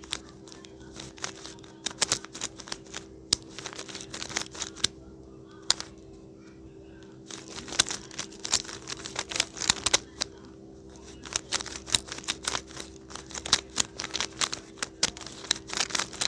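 Rubik's cube being turned quickly during a solve: rapid plastic clacking of the layers in bursts, with a couple of brief lulls, over a steady low hum.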